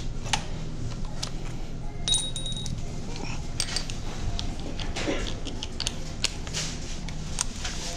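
Scattered light metallic clicks and clinks of small items being handled, with a short electronic beep about two seconds in, over a steady low hum.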